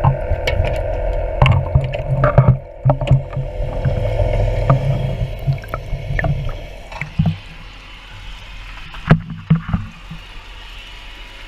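Water gurgling and sloshing, with scattered clicks and knocks and a low steady rumble of a boat engine; it grows quieter about seven seconds in.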